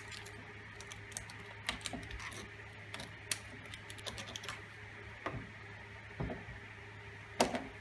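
Irregular small clicks, creaks and scrapes of a hand tool being pressed and twisted through a tank's top plate to punch cable holes, with a louder knock near the end.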